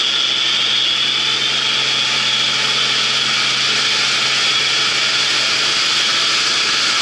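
Claas Dominator 88 combine harvester running steadily under load, a constant mechanical din with a high whine over a low hum.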